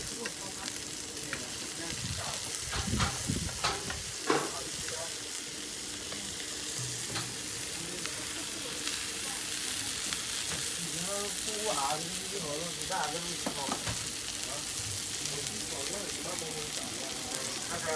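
Potato shredded rolls sizzling in oil on a round flat griddle pan, a steady frying hiss. A few sharp clicks come a few seconds in.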